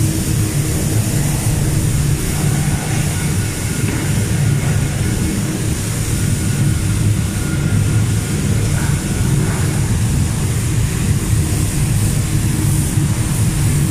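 Steady drone of factory machinery and ventilation fans: a low hum with a hiss above it.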